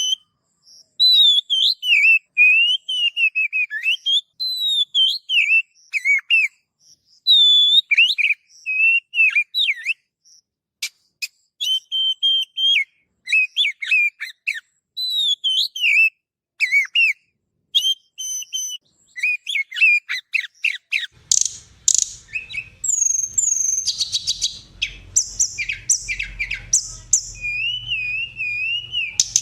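Songbird singing: a quick string of varied whistled phrases, slurred notes and chirps with short pauses between them. About three-quarters of the way through it turns into busier, overlapping chirping over a low hum.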